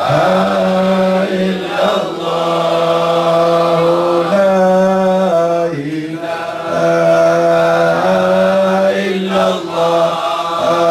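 Group of men chanting a Shadhili Sufi dhikr in unison. A short phrase is repeated over and over in long held notes that step between two pitches about every two seconds.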